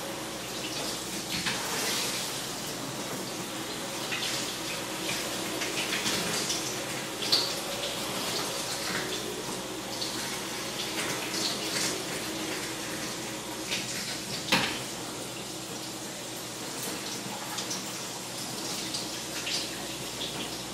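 Shower spray running steadily against a glass shower door, with a couple of brief sharper spatters.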